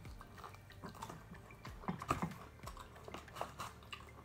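Close-miked chewing and biting on a chicken wing: irregular wet mouth smacks and small clicks of teeth and lips.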